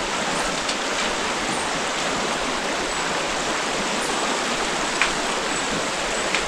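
Steady rushing of a river running over rocks, with two light clicks about five and six seconds in.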